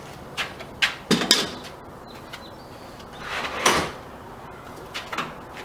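Pull-out support arm on a wooden tool cart being handled and folded: a few sharp knocks, then a longer sliding rub about three and a half seconds in, and two lighter knocks near the end.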